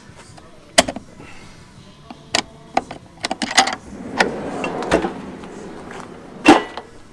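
Custom-made wooden storage drawers being worked: a pin latch clicking and rattling, then a drawer rolling out on its metal slides with a steady rumble. A loud knock near the end.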